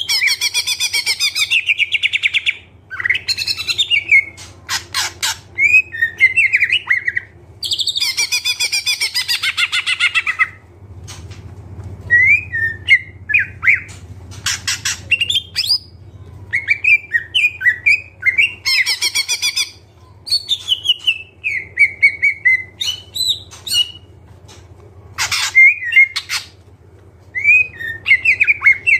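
Green leafbird (cucak ijo) singing continuously and loudly. Fast rattling trills and chatter alternate with short whistled, gliding phrases, a song packed with mimicked calls of other birds. A faint steady low hum runs underneath.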